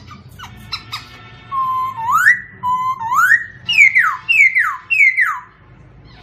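A songbird singing clear whistled phrases: a few quick short notes, then two notes held low that sweep upward, then four falling slurred whistles in a row.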